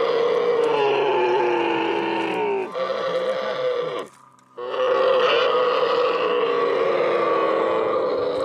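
Young camels bellowing in long, drawn-out calls, with a short break about four seconds in.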